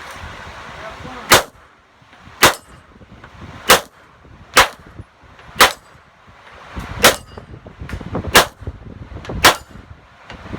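Glock 17 9mm pistol fired about eight times at a slow, uneven pace, roughly one shot every second or so, with steel target plates clanging when hit.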